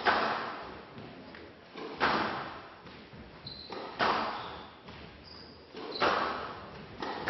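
Squash ball hit back and forth in a rally: sharp cracks of racket and front-wall hits about every two seconds, each ringing out in a large hall, with smaller knocks between. Brief high squeaks of court shoes come in now and then.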